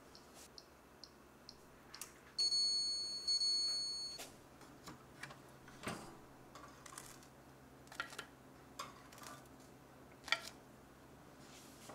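Toaster oven's mechanical timer ticking steadily, about three ticks a second. A bell dings twice as the timer runs out. Then come scattered clicks and light knocks as the door is opened and the toast is lifted off the wire rack.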